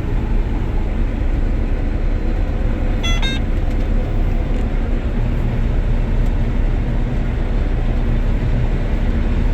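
Combine harvester running steadily, a dense low drone of engine and machinery. A short high-pitched chirp sounds about three seconds in.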